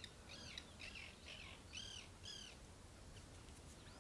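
Birds calling faintly: a quick run of short arched calls, several a second, over the first two and a half seconds, then fainter and sparser.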